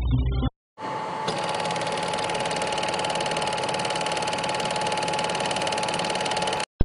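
A small machine running steadily, with a fast, even clatter and a steady whine. It starts about a second in and cuts off suddenly near the end, followed by a click.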